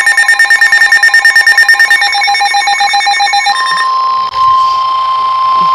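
Emergency alert tones: a rapidly pulsing, ringing electronic alarm tone, about ten pulses a second, that gives way about three and a half seconds in to a single steady tone. The steady tone drops out briefly just over a second later.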